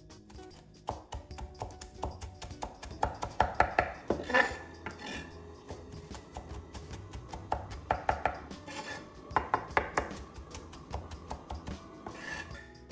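Chef's knife chopping fresh parsley on a wooden cutting board: rapid knife taps on the wood in two runs, a few seconds in and again past the middle, with gaps while the leaves are gathered by hand.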